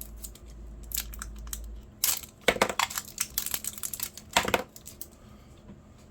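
Packaging of a new lock being handled and opened: a cluster of short rustles and clicks, busiest from about two to five seconds in.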